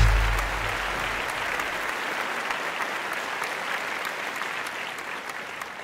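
Crowd applauding, a dense even clatter of many hands, slowly fading. The low tail of a music sting dies away in the first two seconds.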